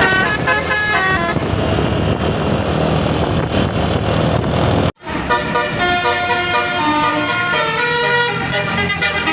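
Bus 'telolet' horn: a set of multi-tone air horns on a bus playing a quick melody of stepped notes. It sounds briefly at first, then after a noisier stretch without the tune it plays again, longer, from about halfway.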